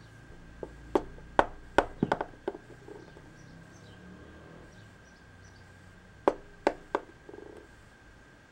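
Littlest Pet Shop plastic figurines tapped and set down on a tabletop: a quick run of about seven sharp clicks, then three more near the end, over a faint steady high hum.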